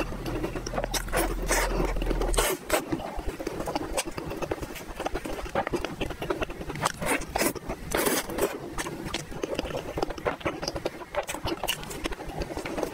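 Close-up mouth sounds of chewing soft, floss-topped bread: wet smacks and clicks, with light crackles from plastic gloves tearing the bun. A low steady hum runs underneath and cuts off about two and a half seconds in.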